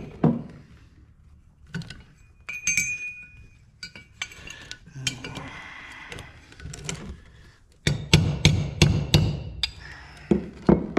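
Metal hand tools and parts clinking and knocking, with a short metallic ring about three seconds in and a quick run of loud metal knocks about eight seconds in.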